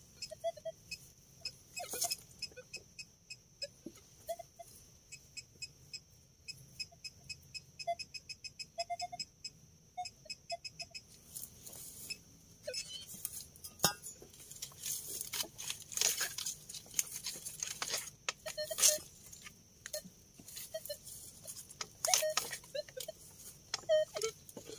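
Loose soil and leaf litter being scraped and pushed back to fill a small dug hole, in irregular rustling, scraping bursts through the second half. Before that there is a run of quick, evenly spaced ticks over a faint steady high hiss.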